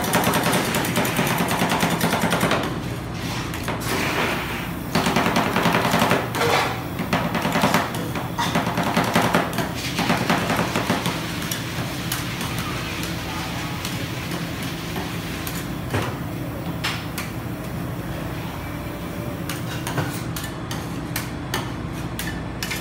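Two metal spatulas chopping and scraping ice cream on a steel cold plate for rolled ice cream: rapid tapping and clatter for about the first half, then quieter scraping as the mixture is spread thin.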